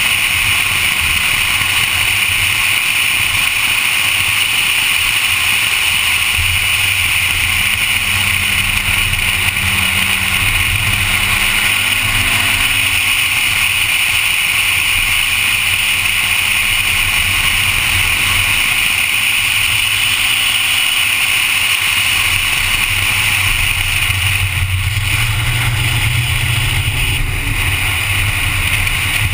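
Honda Civic driving, heard as a steady, loud wash of wind and road noise with the engine's pitch drifting gently up and down underneath.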